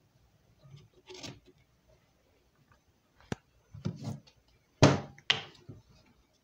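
Handling noise of plastic discs and parts around a disc repair machine: a few light clicks and knocks, then two loud sharp clacks close together about five seconds in. The machine itself is not running.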